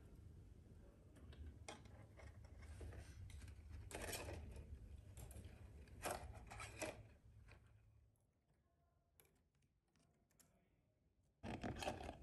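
Faint handling sounds of fingers arranging a fine-wire fairy-light string on cardboard houses: scattered small clicks and light rustles over a low hum. They stop for about three seconds, and a short, louder rustle comes near the end.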